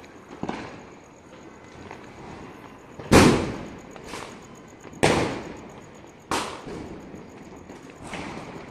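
Diwali firecrackers going off across the neighbourhood: a series of sharp bangs a second or two apart, the loudest about three seconds in. Each bang is followed by a rolling echo.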